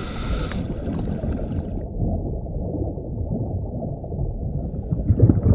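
Muffled underwater ambience: a steady low rumble and gurgle of water with no high sounds in it.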